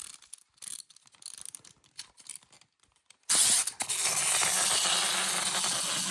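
Small wind-up toy: a few light clicks, then about three seconds in its clockwork spring motor is released and runs with a loud, steady whir.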